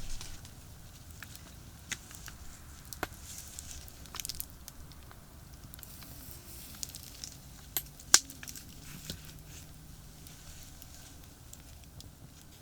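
Campfire crackling, with scattered sharp pops and clicks, the loudest about eight seconds in, over a steady low rumble of distant highway traffic.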